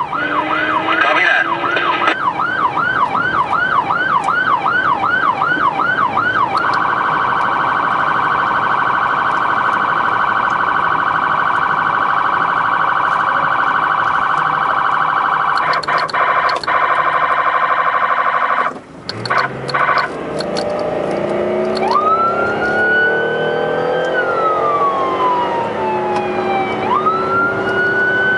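Electronic emergency-vehicle siren heard from inside the responding vehicle, changing modes: a fast yelp of about three sweeps a second, then a very rapid warble for about twelve seconds, a short break, then a slow wail that rises and falls twice.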